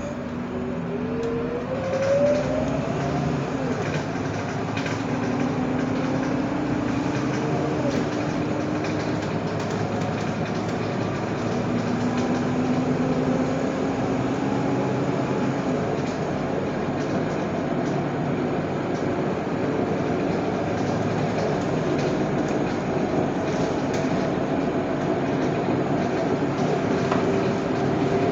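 Scania K230UB single-deck city bus driving, heard from inside the cabin: the engine and drivetrain run under a steady rumble of road and body noise. A whine rises in pitch about two seconds in, then settles into steady tones as the bus runs on.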